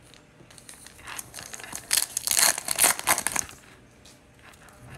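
Baseball card pack's wrapper crinkling as it is torn open, a flurry of crackly rustles between about two and three and a half seconds in, with lighter card handling around it.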